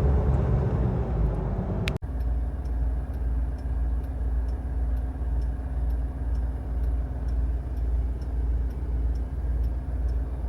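A 1993 Mitsubishi Pajero V46's diesel engine and road noise droning while it is driven uphill. About two seconds in the sound cuts off abruptly and resumes as a quieter, steady drone with a light tick about twice a second.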